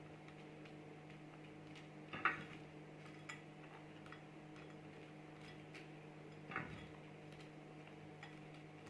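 A few faint, light clicks and taps from handling the cake and almonds, the two clearest about two seconds in and about six and a half seconds in, over a steady low hum.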